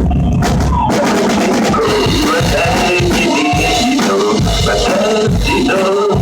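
Rock music with a drum kit played over a backing track: kick, snare and cymbals under a melody line. The drumming gets busier and the cymbals louder about a second in.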